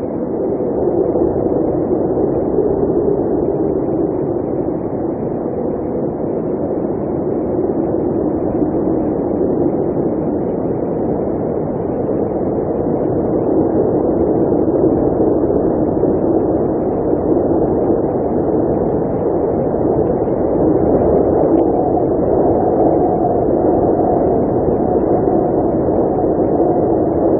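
Blizzard wind blowing steadily. It is a dense, low rushing noise whose pitch shifts slowly, with a slightly higher band coming in about two-thirds of the way through.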